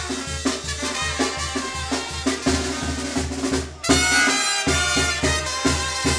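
Latin dance music with brass and drums over a steady bass beat. It breaks off for a moment about four seconds in, then comes back.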